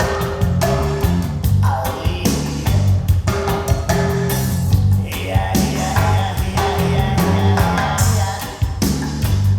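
Recorded music played on a high-end hi-fi system of Børresen Acoustics loudspeakers driven by Gryphon amplification: a deep, repeating bass line under regular percussive hits.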